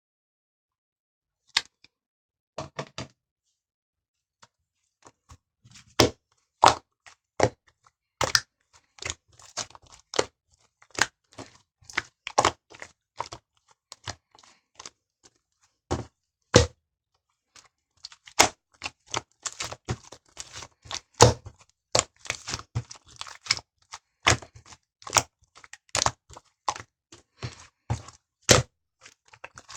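Slime being played with by hand, making irregular sharp clicks and pops. The sounds are sparse at first and come thick and fast from about six seconds in.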